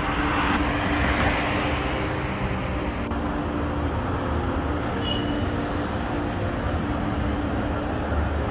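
Steady road traffic noise with a constant low hum underneath.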